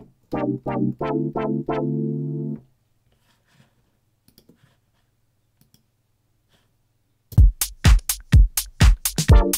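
Logic Pro's Retro Synth played as minor 7/9 chords through a Chord Trigger, giving several short, snappy chord stabs and then one held chord that stops about two and a half seconds in. After a few seconds of quiet, a house drum beat with deep, regular kicks starts near the end.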